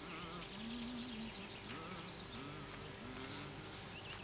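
A flying insect buzzing in a TV film's soundtrack, its pitch repeatedly rising and falling as it moves about.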